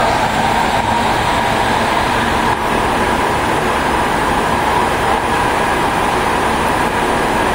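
Tokyu 2000 series electric commuter train running at speed through a subway tunnel, heard from inside the carriage: a steady, loud running noise of wheels on rails.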